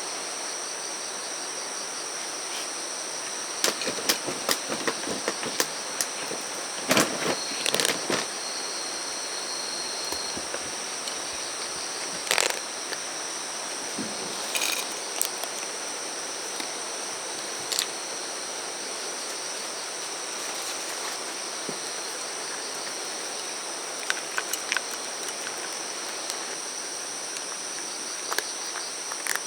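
Outdoor chorus of insects, several kinds trilling steadily in high pitches, with scattered sharp clicks and knocks, most of them in the first third.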